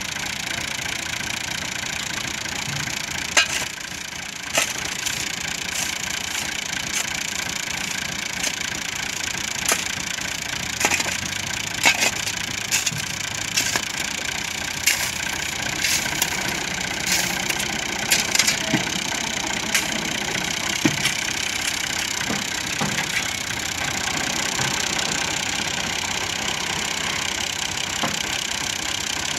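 New Holland 480 tractor's diesel engine idling steadily, with irregular sharp clinks and scrapes of a spade digging into sand and gravel.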